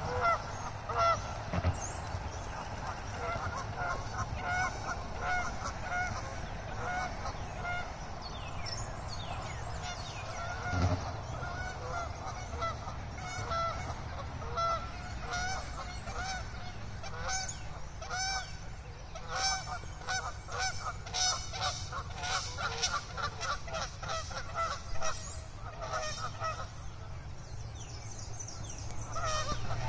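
Canada geese honking over and over, the calls coming in quick, dense runs through the second half. This is typical of two ganders squaring off over a mate.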